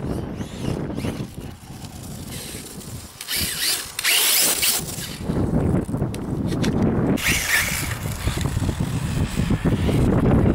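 XTM Rail 1/8 RC buggy's Turnigy XK4074-2000KV brushless motor whining in two bursts of throttle, about three and seven seconds in. Wind buffets the microphone throughout with a low rumble.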